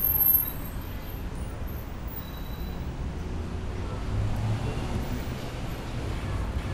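Street traffic: a steady low rumble of motor vehicles on the adjacent road, with a brief louder burst right at the start and a passing engine's hum about four seconds in.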